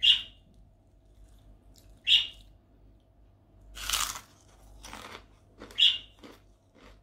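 Crunching bites and chewing of crisp kerupuk, Indonesian fried crackers. There are several short, sharp crunches a second or two apart, with the longest and loudest about four seconds in.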